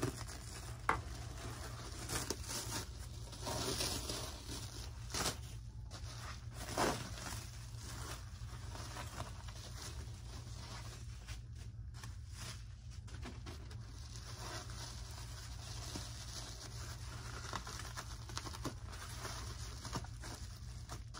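Plastic sheeting and bubble wrap crinkling and rustling as it is pulled off a packed item by hand, with a few short, sharp crackles in the first several seconds.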